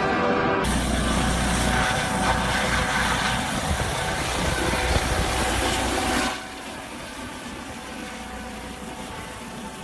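Helicopter hovering low and close: a loud, steady rush of rotor and turbine noise over a deep rumble. About six seconds in, the sound drops sharply to a much quieter level.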